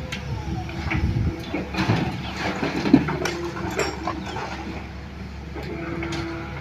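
Hitachi hydraulic excavator working: a steady diesel engine drone with a whining hydraulic pump. Over it come irregular knocks and clatter as soil and stones drop into the dump truck's steel bed and the bucket works the ground. The sharpest knock comes about three seconds in.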